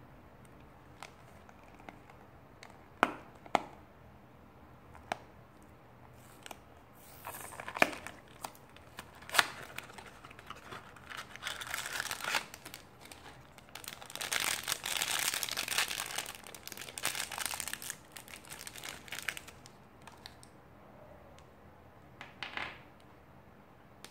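A small cardboard blind box and its packaging being opened by hand. Several sharp clicks and taps in the first ten seconds, then long stretches of crinkling and tearing packaging.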